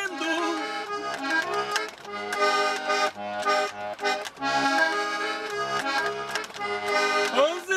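Accordion playing an instrumental passage of a traditional folk tune: a melody and chords over a regularly repeating bass note.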